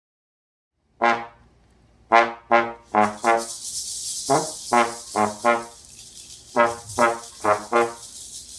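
About a second of silence, then a trombone playing short, detached notes in quick groups of two to four. Maracas shake steadily behind it from about three seconds in.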